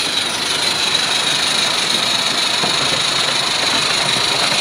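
Steady, loud hiss of steam escaping from a small live-steam model locomotive being fired up for a test run.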